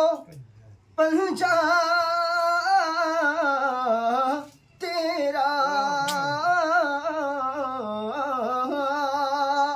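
A man singing a manqabat, an Urdu devotional poem, unaccompanied. He sings two long, drawn-out ornamented phrases with a wavering pitch, broken by a short breath about halfway.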